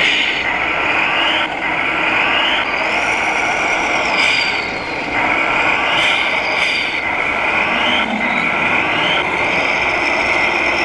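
Electric drive of a radio-controlled Kirovets model tractor whining under load as it climbs over soil, its pitch stepping up and down with the throttle.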